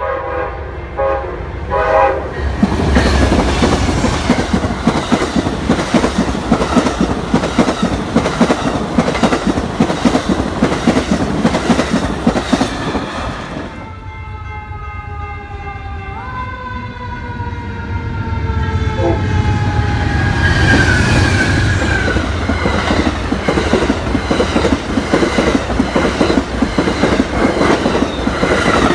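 An Amtrak passenger train sounds a few short horn blasts, then runs past with a loud rumble and clickety-clack of wheels over the rail joints. Then a second Amtrak passenger train blows a long horn chord that slowly drops in pitch as it nears, and its passing cars rumble and clatter.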